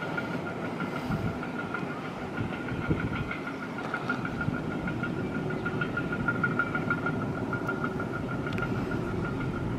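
Electric train running away along the track, a steady rumble that stays even, with a steady high-pitched tone above it.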